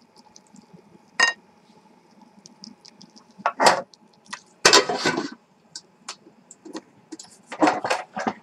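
Frying pan and lid being handled on a tabletop gas stove: a ringing metallic clink about a second in, then scattered knocks and a short clatter of metal on metal.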